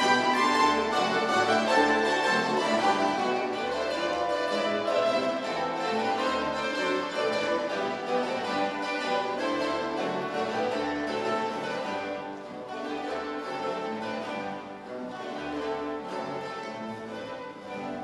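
Mandolin orchestra of mandolins, mandolas, guitars and double bass playing classical music, gradually getting quieter over the second half.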